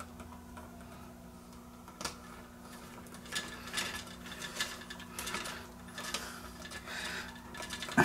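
Electrical wires and wire nuts being handled and pushed about in a wall switch box: a sharp click about two seconds in, then irregular rustling, scraping and clicking of stiff copper wire and plastic wire nuts.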